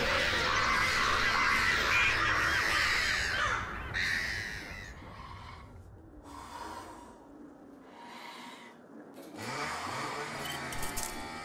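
A flock of birds calling all at once in a dense, raucous chorus that fades out after about four seconds. A much quieter stretch follows, with a low wavering sound near the end.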